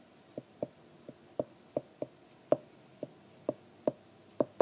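Stylus tapping against a tablet screen while handwriting, about a dozen sharp taps at an uneven pace.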